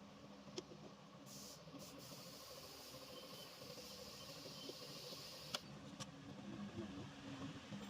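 A faint, steady hiss of spraying gas or liquid that starts about a second in, with two sharp clicks, the second louder.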